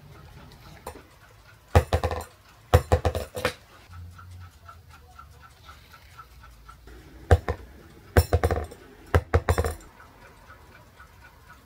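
Glass thermometer clinking and knocking against a hard wooden surface in short rattling clusters of quick clicks, five times: about two seconds in, around three seconds, and three more between about seven and ten seconds.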